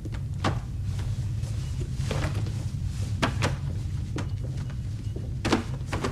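A run of knocks and clatters from cupboards and drawers being opened and shut and things being handled as someone hurriedly packs papers into a bag, over a low steady hum.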